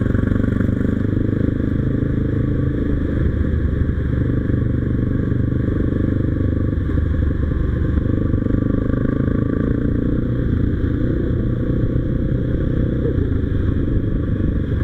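Motorcycle engine running steadily at an even pitch while riding at cruising speed, with road noise.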